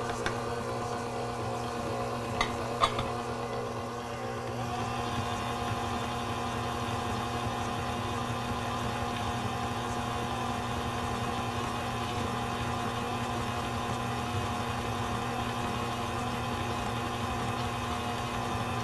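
Smeg stand mixer motor running steadily with a hum as its flat beater creams butter and sugar in the stainless steel bowl. Two sharp clicks come about two and a half seconds in.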